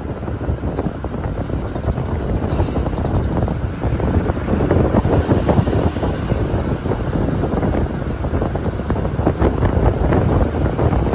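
Wind buffeting the microphone through the open window of a moving vehicle, over the vehicle's road noise. It gets a little louder about four seconds in.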